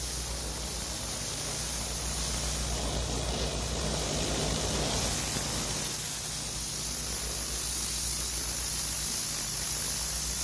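DeWalt 3800 psi gas pressure washer blasting concrete through a turbo nozzle: a steady hiss of high-pressure water spray, with the engine's low hum underneath.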